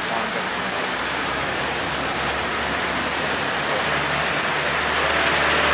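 Steady rain falling, an even hiss. A low hum comes in and grows louder during the last second or two.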